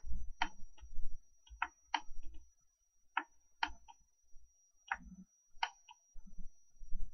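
Computer mouse buttons clicking, a dozen or so sharp clicks, often in quick press-and-release pairs, over low rumbling knocks.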